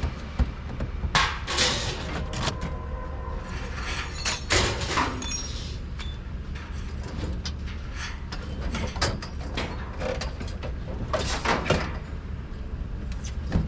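A steady low vehicle rumble with irregular bursts of clattering and knocking, like loose scrap metal shifting and banging.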